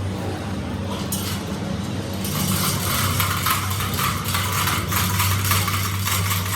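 Metalworking machinery running with a steady electric hum. About two seconds in, a harsh crackling hiss starts and continues.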